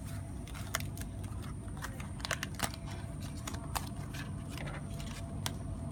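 Light crinkles and small clicks of printed cardstock being handled and creased as a tiny toy box is folded, scattered irregularly over a steady low background rumble.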